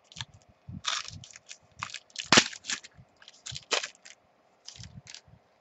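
Sealed pack of football trading cards being torn open by hand, its wrapper crinkling and crackling irregularly, with the sharpest crackle about two and a half seconds in.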